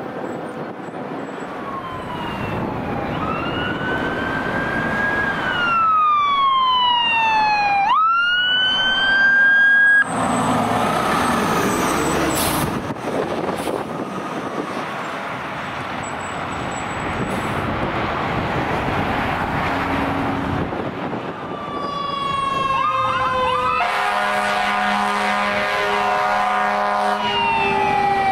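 Fire apparatus sirens wailing, their pitch sweeping up and down, over truck engine and road noise, with a steady horn blast of about three seconds near the end.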